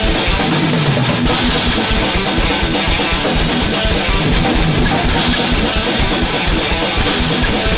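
Thrash metal recording: a distorted electric guitar riff over a fast bass-drum beat, with a cymbal wash swelling every couple of seconds.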